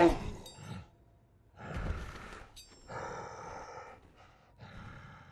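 Animated snow monster's creature vocal effects: the tail of a loud growl cutting off right at the start, then three long, breathy exhalations about a second apart, with a brief high tinkle near the middle.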